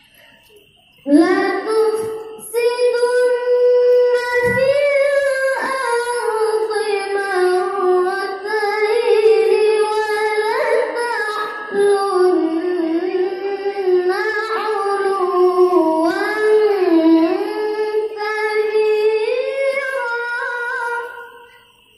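A child qari reciting the Qur'an in the melodic tilawah style over a microphone and loudspeakers: long, ornamented phrases whose pitch rises and falls. The voice starts about a second in, with short breaks for breath, and stops shortly before the end.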